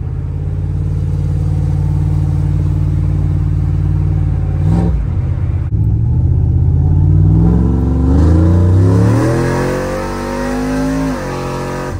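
Cammed 370-cubic-inch 6.0 LS V8 with long-tube headers and dual 3-inch exhaust, heard from inside the truck's cab under acceleration. It runs steadily at first, then after a brief break about five seconds in the revs climb for several seconds, and near the end they drop sharply.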